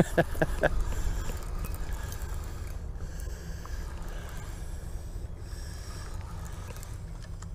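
Spinning reel being cranked steadily to retrieve a hooked catfish, over a steady low rumble.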